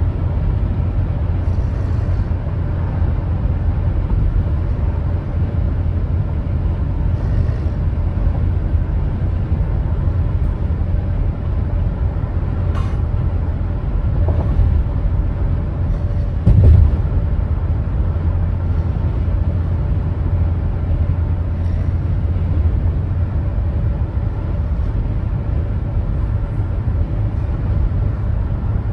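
Steady low rumble of a moving vehicle, with one brief louder bump a little past halfway through.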